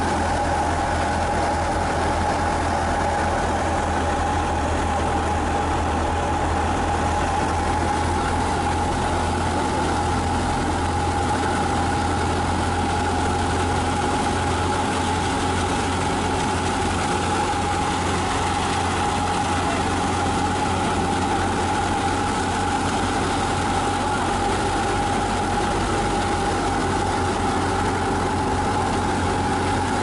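Wheat thresher running steadily while threshing, a constant low drone with a steady whine above it.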